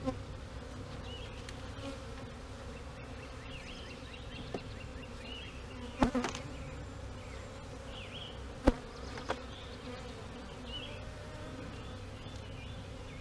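A swarm of honeybees buzzing steadily around the open hive boxes and frames. A few sharp knocks cut through it, the loudest about two-thirds of the way in.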